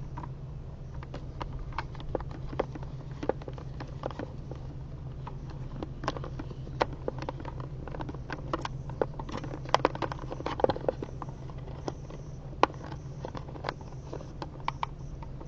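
Irregular small clicks, taps and rattles of hands handling cable and mounting hardware, over a steady low hum.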